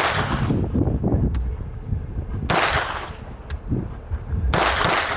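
AR-style pistol fired three single shots about two seconds apart, each crack trailing off in a long echo, with a few fainter sharp cracks in between.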